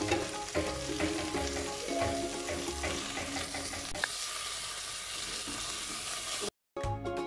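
Chopped fenugreek, coriander and mint leaves sizzling in hot oil and butter in a stainless-steel pan, stirred with a metal slotted spoon. Background music with a beat plays under the sizzle for the first few seconds, then after a brief dropout near the end the music comes back on its own.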